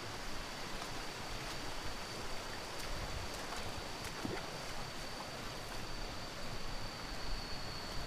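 Shallow stream running over rocks, a steady rush of water, with a thin steady high whine above it.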